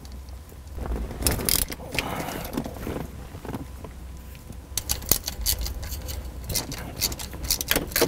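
Hand ratchet with an extension and 13 mm socket loosening the stock shifter bolts: runs of quick metallic clicks, thickest in the second half, with some tool clatter.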